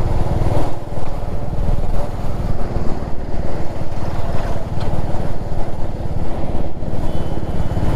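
Royal Enfield Meteor 350's single-cylinder engine running steadily at cruising speed under the rider.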